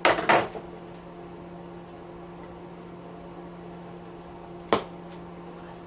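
A few sharp knocks as parts or tools are handled, the loudest cluster right at the start and one more knock near the end, over a steady low electrical hum.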